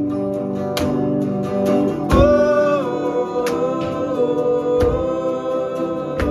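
Indie rock band playing live: guitars, bass and drums on a passage without lyrics, with drum hits about every second and a higher held note about two seconds in.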